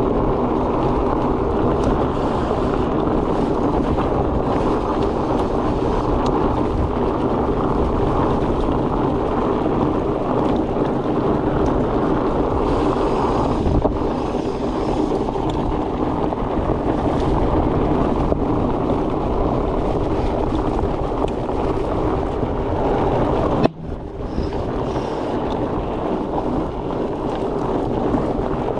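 Steady wind rushing over the camera microphone, mixed with rolling tyre noise from a fat bike on the trail, with a brief dip about 24 seconds in.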